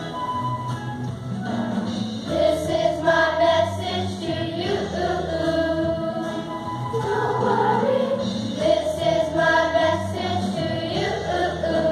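Children's school choir singing a pop song in chorus, with long held notes that shift in pitch every second or two.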